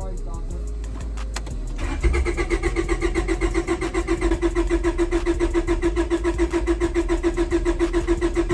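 About two seconds in, a starter motor begins cranking the Honda Prelude's H22 engine over, a fast, even churning of about six or seven beats a second. It keeps cranking without the engine catching: a long crank on an engine that has sat unrun for 16 years, right after its fuel filter was changed.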